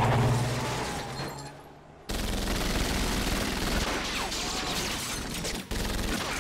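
A low drone that fades away over the first two seconds, then a sudden, sustained burst of rapid automatic gunfire from the TV show's soundtrack, with rounds hitting the room.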